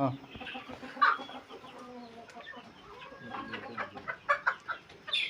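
A mixed flock of chickens clucking, many short calls overlapping, with a louder call about a second in and a run of quick clucks near the end.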